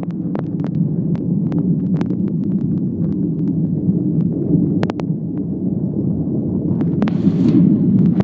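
Airliner cabin noise during takeoff: a loud, steady low rumble from the engines and airframe, with scattered sharp clicks and rattles. A brief rush of higher-pitched noise comes about seven seconds in.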